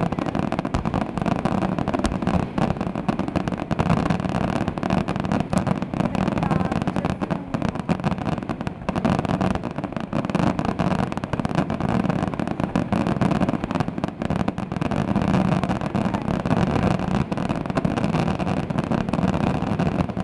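Fireworks display in a dense barrage: many aerial shells bursting and crackling in quick succession, so close together that the bangs run into one unbroken roll of noise.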